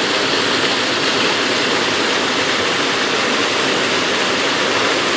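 Waterfall rushing steadily into a swimming hole, an even roar of falling water with no break.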